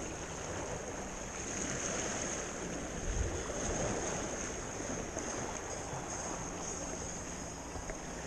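Sea waves washing and lapping against the rocks of a jetty, a steady rushing of water with no distinct breaks.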